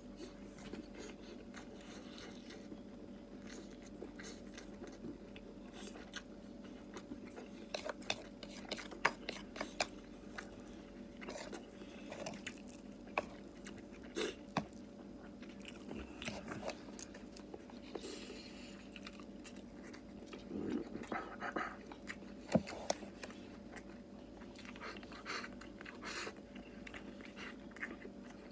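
A man chewing and eating: scattered wet mouth clicks and smacks, with no talking, over a faint steady hum.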